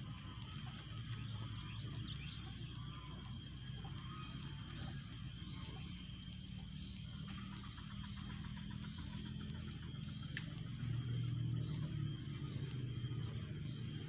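Steady outdoor background dominated by a low hum that grows louder about eleven seconds in, with a few faint, short bird chirps now and then.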